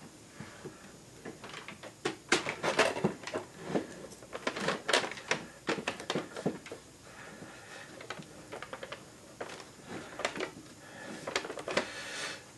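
Wooden lantern parts knocking and clicking together as the glued sides and corner posts are fitted and pressed into line by hand: irregular light taps, some in quick clusters.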